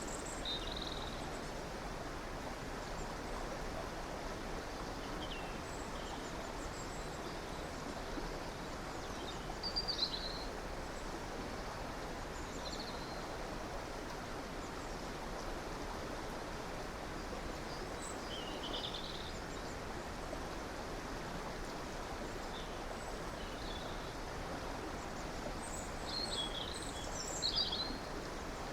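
A river or stream rushing steadily, with small birds chirping now and then above it, in a few short clusters.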